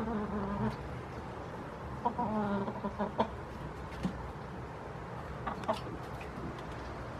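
Domestic hens giving two drawn-out calls, each under a second long, one at the start and another about two seconds in. A few short sharp knocks follow later.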